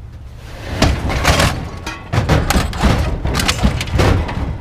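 Heavy scrap metal being lifted and loaded: a run of loud bangs and thuds, one after another, from about a second in.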